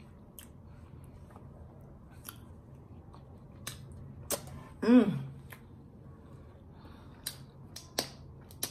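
Wet mouth clicks and lip smacks of someone eating and licking sauce from their fingers, scattered through the pause. About five seconds in comes a brief hum of the voice, rising and falling.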